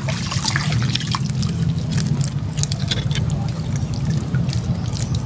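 Hands digging through wet mud for mud clams: wet squelching and trickling with a few faint clicks, over a steady low hum.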